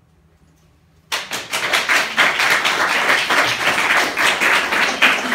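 About a second of near silence, then an audience starts applauding: many hands clapping together, dense and steady.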